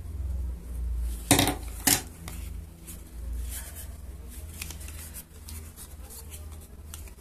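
Scissors cutting paper card: two loud sharp snips about half a second apart, then fainter rustling and handling of the paper.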